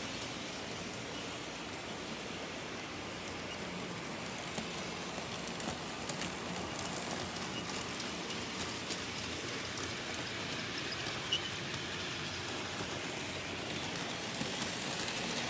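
HO-scale Märklin model trains running on the layout's track: a steady rolling rush of small metal wheels and motors, with a few light clicks scattered through it.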